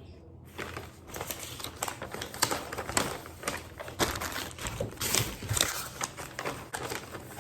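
Parts packaging being handled and rummaged through: crinkling and rustling with many scattered small clicks and knocks.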